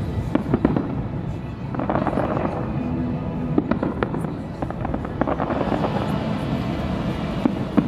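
Fireworks bursting in scattered sharp bangs, loudest just after the start and near the end, over music and voices.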